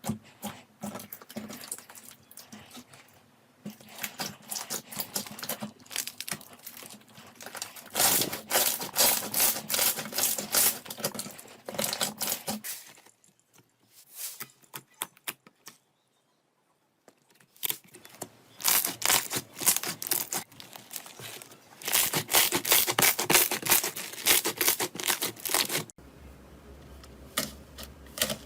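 Slime being squeezed, poked and stretched by hand, giving dense crackling and popping clicks. It comes in several stretches that change abruptly, with a near-silent pause about halfway through.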